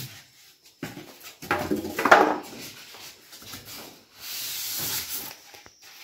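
Styrofoam packing being pulled off a new washing machine's plastic cabinet: irregular rubbing and scraping of foam against the cabinet, loudest about two seconds in, then a hissing rustle about four to five seconds in.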